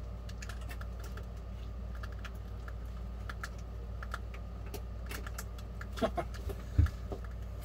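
Irregular light ticking and crackling as a burning fuel tablet heats a foil ration tray on its small stand, over a steady low hum. A couple of louder knocks come near the end.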